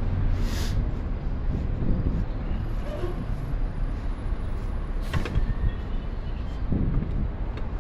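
Steady low rumble of vehicles, with a sharp click about five seconds in.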